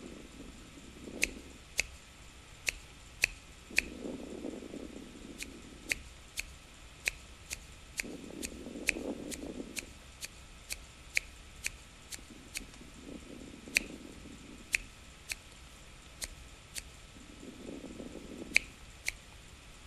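Fingers snapping, about thirty sharp snaps at an uneven pace of one to two a second. Between them is a soft low rush that rises every four to five seconds.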